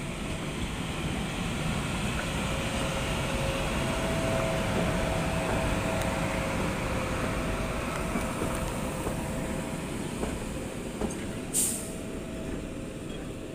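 Swiss Ce 6/8 II 'Crocodile' electric locomotive passing slowly at close range: a steady rumble of wheels and running gear on the rails with a faint steady whine from the drive. The noise is loudest as it goes by, then eases as it moves away. A brief sharp hiss comes near the end.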